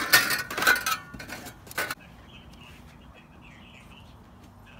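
Metal tools and scrap pieces clattering and rattling as a hand rummages through them in a cardboard box, ending with a sharp clank just before two seconds in. After that, faint bird chirping.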